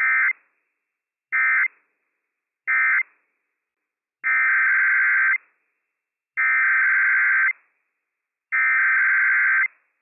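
NOAA Weather Radio SAME data bursts of the Emergency Alert System, a rasping two-tone digital warble. First come three short bursts about a second apart, the end-of-message code that closes one test. Then come three longer bursts of about a second each, the header that opens the next test.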